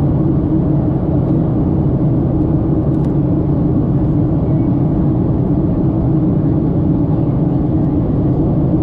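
Jet airliner in flight heard from inside the cabin beside a turbofan engine: a steady, even rush of engine and airflow noise with a low hum under it.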